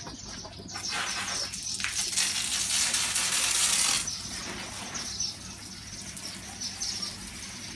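A jet of water from a hand-held hose spraying onto a soaped bicycle, hissing and spattering on the frame and front wheel as the soap is rinsed off. The spray is loudest for the first four seconds, then drops sharply to a softer spatter with small ticks of water.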